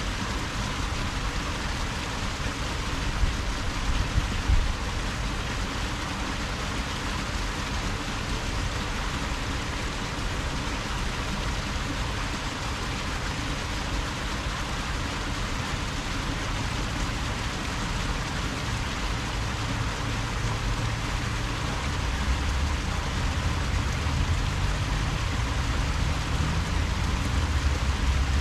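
Steady water hiss, with a low rumble growing louder over the last several seconds.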